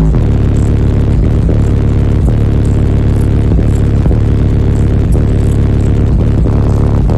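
Bass-heavy music played very loud through a wall of Avatar STU 15-inch subwoofers powered by a 20,000-watt amplifier, heard from inside the vehicle's cabin. Deep bass notes shift pitch every second or so under a regular beat.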